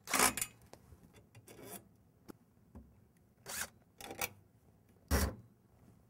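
Cordless drill with a Phillips bit driving screws back into a pet door's frame in short rasping bursts, about five of them, the loudest near the end.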